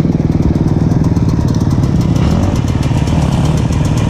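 Single-cylinder two-stroke engine of a KTM 125 SX dirt bike running steadily as it is ridden, its sound getting a little brighter about two seconds in.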